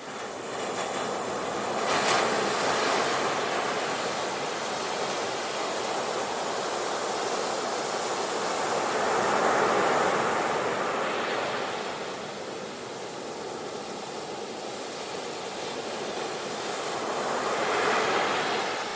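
Ocean surf: waves breaking near the shore in a continuous wash that swells three times, about every eight seconds.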